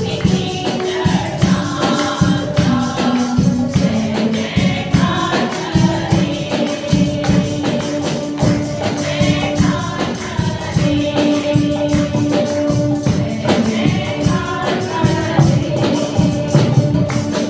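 Women's choir singing a Hindi praise song together, holding long notes, over a steady rhythmic percussion accompaniment.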